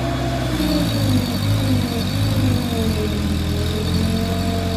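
Diesel engine of an ACE hydra crane running steadily, its note changing about half a second in, with a whine that falls slowly and then rises again.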